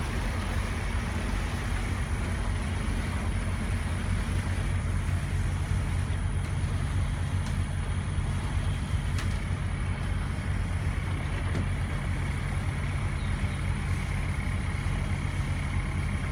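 Houseboat's engine running steadily while underway, heard from on board as an unchanging low drone.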